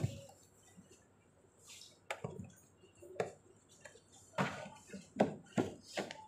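Scattered soft knocks, taps and rustles of hands working a padded fabric seat cover and its straps onto a plastic high chair, coming irregularly with short pauses between them.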